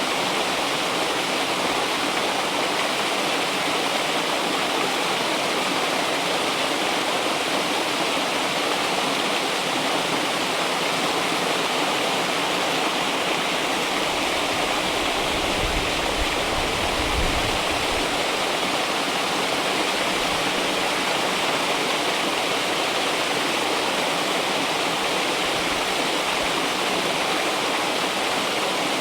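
River water flowing and splashing over rocks in a steady, even rush, with a brief low rumble in the middle.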